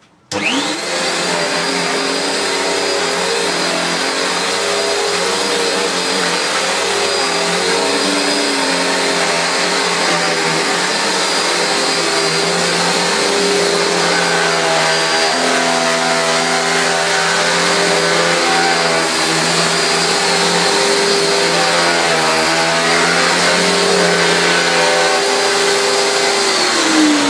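Panasonic MC-E42N upright bagged vacuum cleaner's 650-watt motor starting up with a quick rising whine, then running steadily with a high whine while it is pushed back and forth over a carpet. Near the end the motor's pitch drops.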